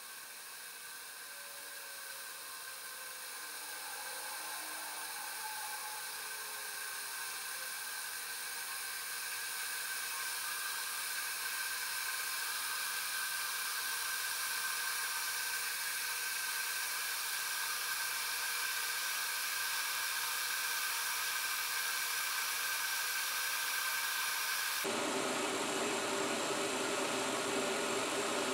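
Pot of water on an electric stove hissing as it heats toward a simmer, growing steadily louder; near the end a lower rushing sound joins in.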